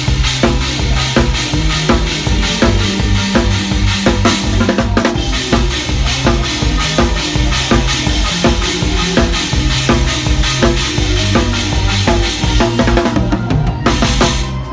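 Instrumental band music with a drum kit (kick drum and snare) and bass playing a steady, even beat, with no singing.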